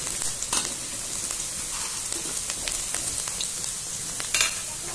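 Sliced red onion and garlic sizzling in hot oil in a wok, frying until they brown, with a metal spatula scraping across the pan as they are stirred; the loudest scrape comes near the end.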